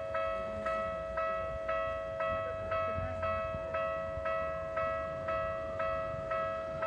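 Japanese railway level-crossing alarm ringing its electronic bell tone about twice a second, each strike ringing over a steady continuous tone.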